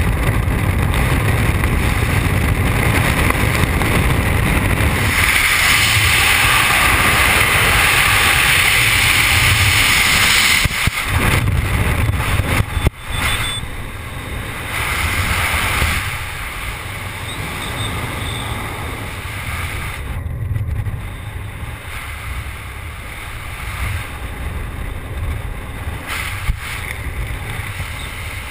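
Freefall wind rushing over a skydiver's helmet camera microphone. About thirteen seconds in it drops sharply to a softer, steady rush, the sign of the parachute opening and the fall slowing.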